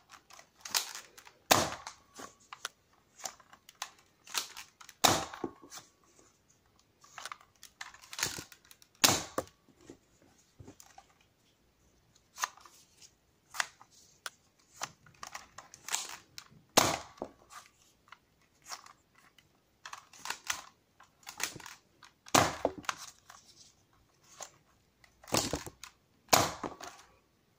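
Spring-powered Nerf dart blasters being primed and fired again and again, about a dozen sharp plastic clacks, with softer handling clicks between the shots as darts are loaded.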